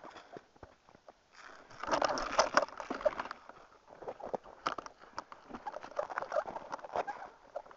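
Crunching and rustling of footsteps through snow, with a dense stretch of crunching about two seconds in, then scattered crunches.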